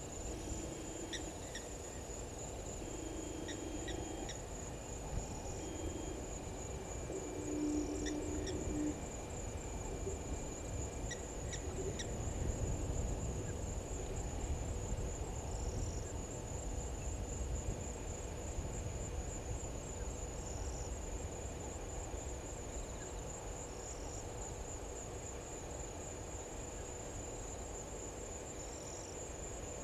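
Insects keep up a steady, high, pulsing trill. Over it a bird repeats low hooting notes through the first nine seconds or so, and short high chirps come every few seconds.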